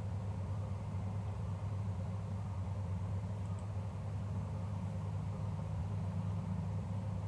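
Steady low hum with a faint hiss underneath: the background noise of the room and microphone, with no events standing out.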